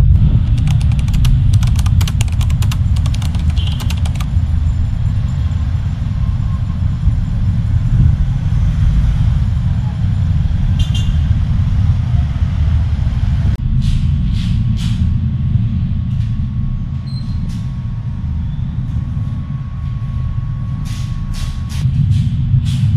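Road traffic on a city street, with a heavy low rumble and scattered clicks and knocks.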